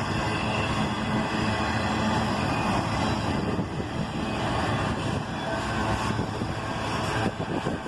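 Autorack freight train rolling past while picking up speed: a steady rumble with a low hum in it and no sharp events.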